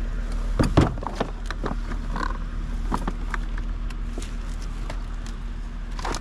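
Scattered clicks, knocks and rattles of hard plastic and metal junk being handled and pulled at, the sharpest a little under a second in, over a steady low hum.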